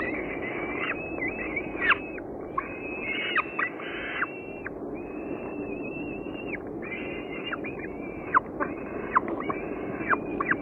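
Falcon nestling begging during a feeding: a close run of thin, squealing calls, each held level and then dropping sharply in pitch at its end, over a steady low hiss.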